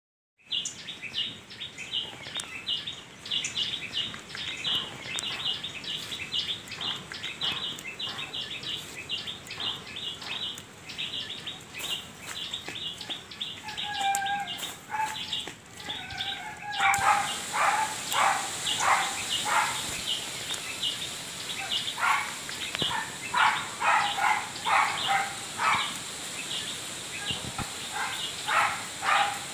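Birds chirping in quick, repeated short calls. About seventeen seconds in, the sound changes suddenly to a louder, lower run of calls over a steady high hiss.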